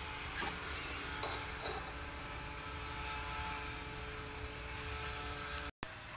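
Steady background hum with a few faint clicks and rubs in the first two seconds as wires and spade connectors are handled.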